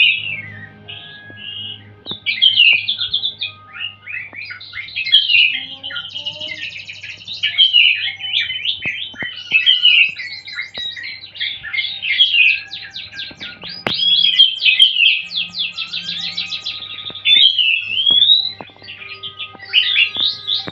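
Caged songbirds singing, a dense, unbroken stream of overlapping whistled phrases and rapid trills from several birds at once. A faint steady low hum lies underneath.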